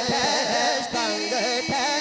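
Male naat reciter singing into a microphone, holding a long wavering melismatic line without words between verses.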